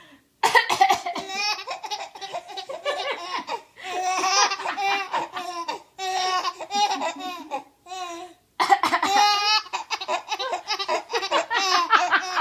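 A young child laughing hard in long, high-pitched bouts, breaking off briefly three times before carrying on.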